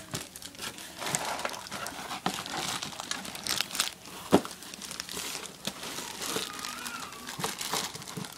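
Plastic bag wrapping and cardboard packaging crinkling and rustling as a speaker is pulled out of its box, in irregular handling bursts with a sharp click about four seconds in.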